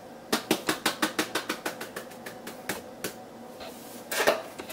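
Salt being dispensed from a handheld salt container over a bowl: a quick run of sharp clicks, about seven a second, thinning out after about two seconds, then a single louder knock near the end.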